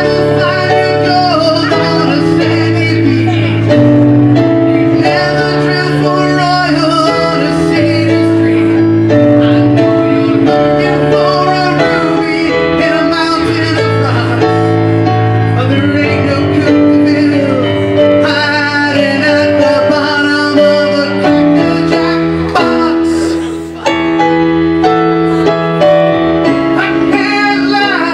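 Live music: a male singer holding long notes into a microphone over keyboard accompaniment, with a brief drop in the music about 24 seconds in.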